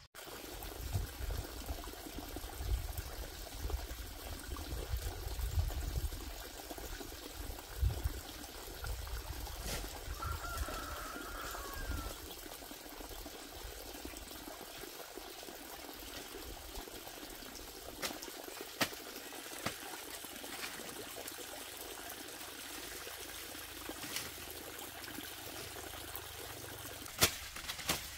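Steady trickling water, with scattered light knocks and a short chirping call about ten seconds in.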